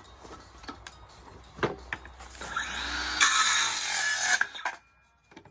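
A tool cutting into wood: a rasping noise that builds up about two seconds in, is loudest for about a second, then stops suddenly near the end, with a few light knocks before it.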